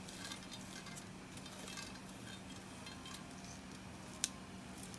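Faint crinkling and small ticks of the paper backing being peeled off double-sided grip tape wound around a golf club shaft, with one sharp click about four seconds in. A low steady hum runs underneath.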